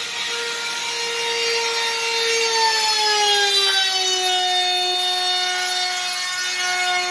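Electric power tool motor running with a steady whine over a rasping hiss. About three seconds in, its pitch sinks a little and then holds, as the motor takes load.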